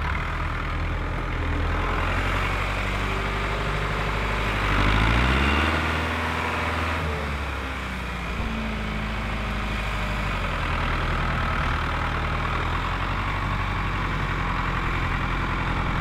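John Deere utility tractor's diesel engine running under load while pulling a moldboard plough. About five seconds in, the engine note rises and gets louder, then settles back about two seconds later.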